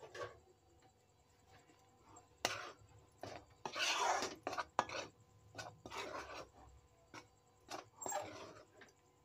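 Metal spatula scraping and stirring thick rice-flour dough against the pan of a kadai in irregular strokes, loudest about four seconds in: flour being worked into boiling water on low heat to form a dough.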